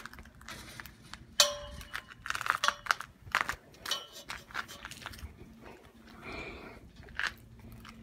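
Crunching footsteps on packed snow and ice, mixed with irregular metal clicks and rattles as a chain-link gate and its latch are handled and shut.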